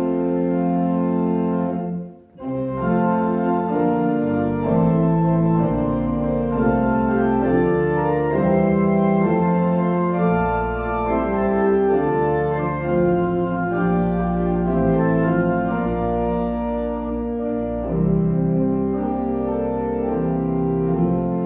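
Church organ playing a hymn in held chords, with a short break about two seconds in before the next phrase begins.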